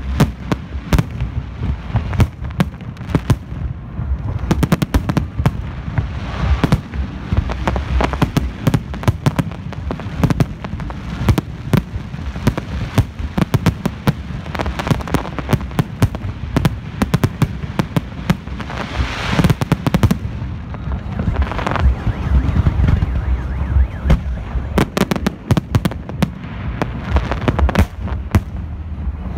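Fireworks display with aerial shells bursting overhead in a rapid, continuous barrage of bangs, heaviest about two-thirds of the way through.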